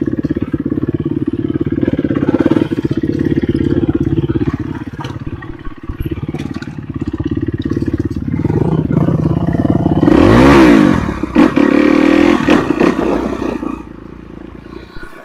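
Off-road enduro motorcycle engine running under load. About ten seconds in it revs up hard, the loudest moment, then falls back, and it eases off near the end.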